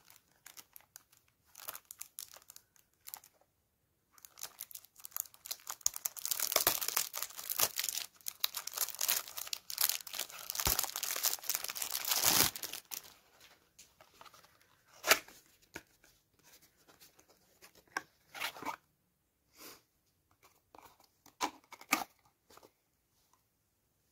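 Cellophane shrink-wrap crinkling and tearing as it is pulled off a cardboard perfume box, then the box being handled and opened, with scattered rustles and sharp clicks, the loudest a single click a little past the middle.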